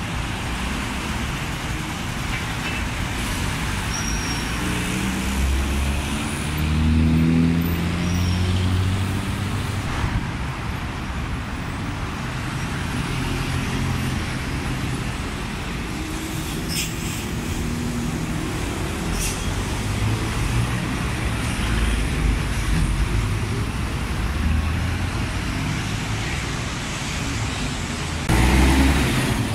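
City buses passing and pulling away along a busy road, their engines rising in pitch as they accelerate, over a steady wash of traffic noise. A louder low rumble starts suddenly near the end.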